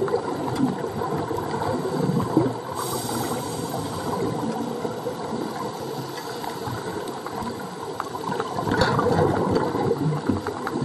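Scuba diver breathing through a regulator underwater: exhaled bubbles gurgling, loudest near the start and again about nine seconds in, with a higher hiss setting in about three seconds in.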